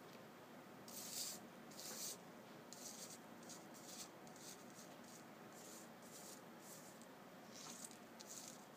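Faint dry rubbing of fingertips sliding over paper, several short soft brushes at uneven intervals, the clearest about one and two seconds in, as tiny moth eggs are swept into a pile.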